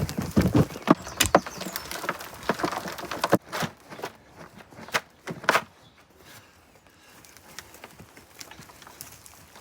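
Spade digging into soft, stony earth, with a run of scrapes and sharp knocks for about six seconds, then quieter.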